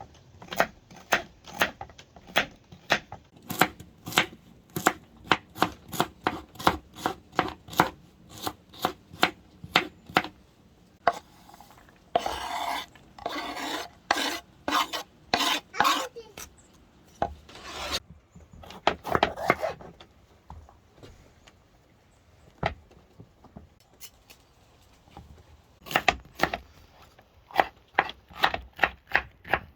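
Knife chopping vegetables on a cutting board in a steady rhythm of about three chops a second. It breaks off in the middle for a stretch of scraping and rubbing, and the chopping resumes near the end.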